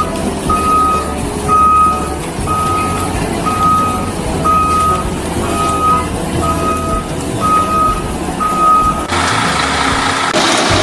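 Truck reversing alarm beeping about once a second over a running diesel-like engine hum. About nine seconds in the beeping stops and the engine sound grows louder.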